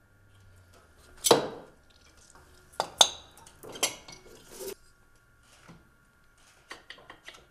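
Motorcycle engine cylinder being lifted up off its piston and studs, the metal clinking and knocking against the engine. There is a loud knock about a second in, a few more around three to five seconds, and lighter clicks near the end.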